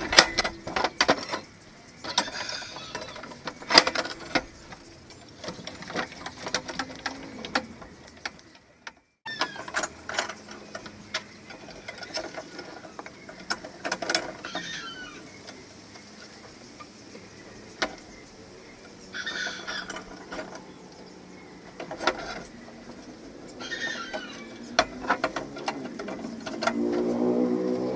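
Irregular clinks and clatters of steel square tubing and hand tools being handled and bolted together on a metal workbench. A few short bird chirps come through between them, and a low pitched call sounds near the end.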